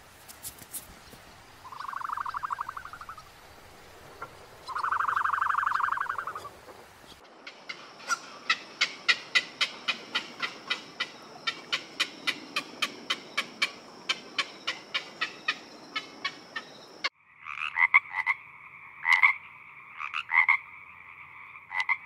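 Frogs croaking: two long pulsed croaks near the start and a run of short, sharp croaks near the end. In between is a regular clicking of about two clicks a second over a thin high tone.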